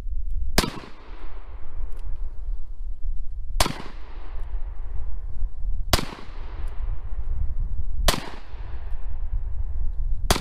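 Five shots from a stainless-steel revolver, spaced two to three seconds apart, each followed by a fading echo.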